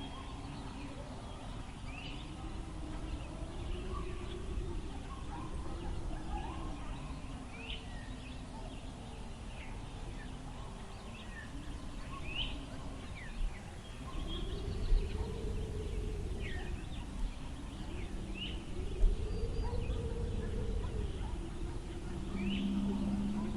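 Wind blowing steadily with a low rumble and a moaning tone that swells and falls in pitch every few seconds. Short high bird calls chirp now and then over it, and a few low thumps come in the second half.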